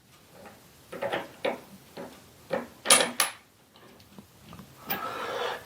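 Metal clicks and clanks of a round bar being set into a 5-inch three-jaw lathe chuck and the chuck's jaws being tightened on it, with a short scrape near the end.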